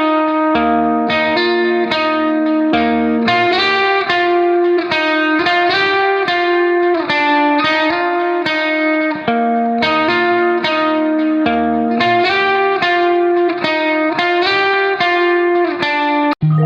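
Background music: a plucked guitar playing a quick run of notes. It breaks off briefly just before the end.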